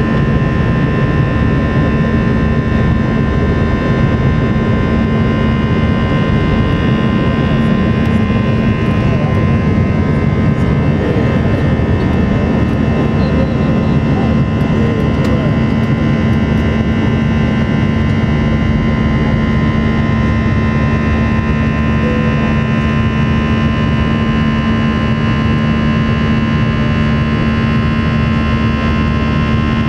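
Airbus A321 jet engines at takeoff thrust, heard inside the cabin over the wing: a loud, steady roar with a steady whine on top, through the takeoff roll, lift-off and the first of the climb.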